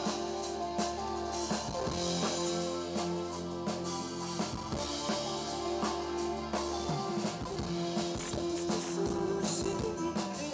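Band playing an instrumental rock passage on drum kit, guitar and bass, with no singing. A low held bass note drops out about seven seconds in.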